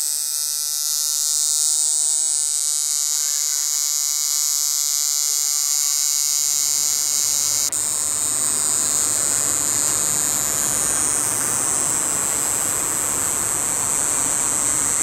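Electronic intro sound: a buzzing synthesizer drone of held tones over loud hiss, which about six seconds in gives way to a steady wash of white noise.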